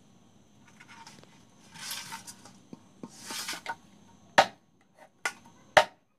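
A large knife cutting up a whole plucked duck: scraping noises of the blade working through the carcass, then three sharp chops in the last two seconds.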